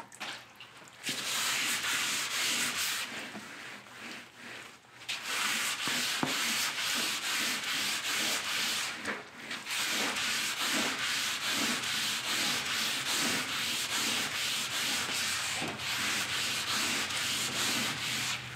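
400-grit wet sandpaper, backed by a Scotch-Brite pad, rubbed by hand over a wet, freshly painted steel truck fender: rasping back-and-forth strokes about twice a second, with a few short pauses.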